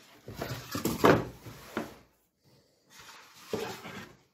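A plastic-wrapped electric contact grill being handled: plastic bag crinkling with a sharp knock about a second in, then a short quiet gap and more rustling and handling near the end.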